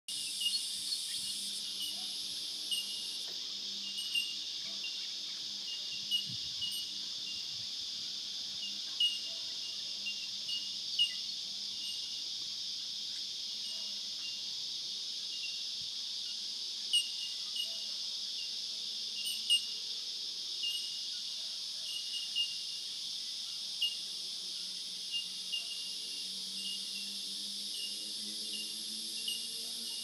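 Steady high-pitched insect chorus droning in a sunny garden, with short sharp high ticks every second or two.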